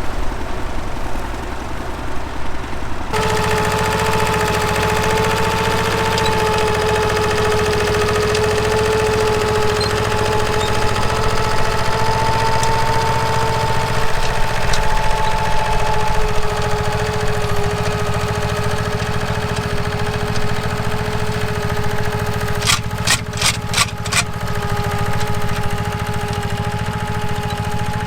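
Tractor engine running steadily, with a steady whine over it. The sound changes abruptly about three seconds in, and a quick run of five sharp clicks comes near the end.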